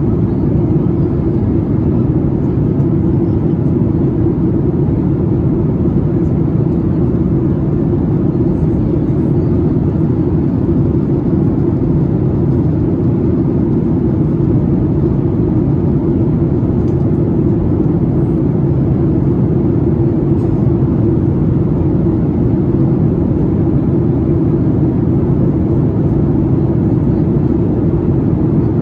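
Steady cabin noise of a Boeing 737-8 MAX in flight, heard from a window seat: an even, deep rush of airflow mixed with the hum of its CFM LEAP-1B engines, unchanging in level.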